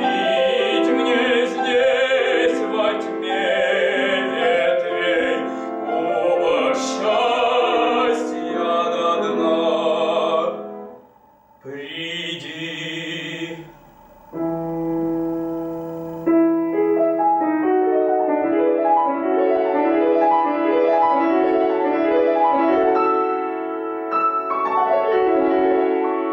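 Classical vocal music with piano accompaniment. It breaks off briefly about eleven seconds in, then goes on as a slower passage of held notes.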